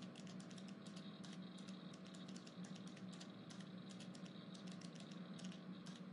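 Faint computer-keyboard typing: quick, irregular key clicks over a steady low room hum, the kind of office background ambience.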